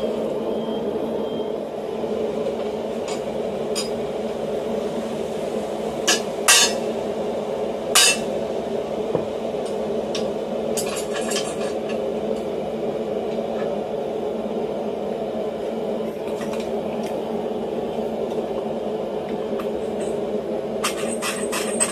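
A steady electric motor hum, with a few sharp metal clinks and, near the end, a quick run of rapid clicks.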